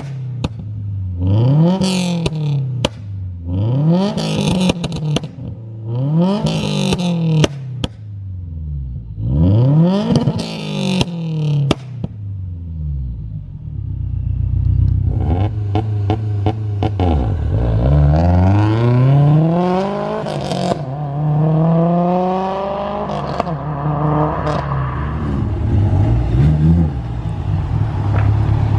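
The turbocharged flat-four of a 2016 Subaru WRX STI with equal-length headers and a pop-and-burble tune is revved in about six quick blips, each followed by pops and crackles from the exhaust as the revs drop. Then comes a rapid crackle while it is held at launch-control revs, and it pulls away, the pitch climbing in several steps.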